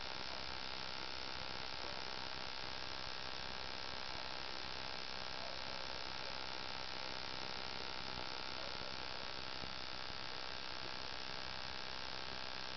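Bush-cricket (katydid) singing at night: a steady, unbroken, high-pitched buzzing hiss with no pauses.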